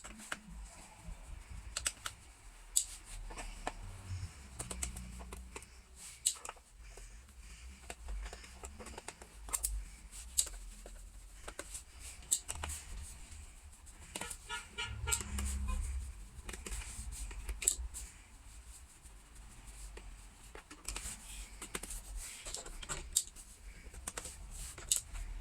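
Irregular small clicks and taps of a screwdriver and fingers working screws out of a laptop's plastic bottom case, with a brief quick rattle about fifteen seconds in.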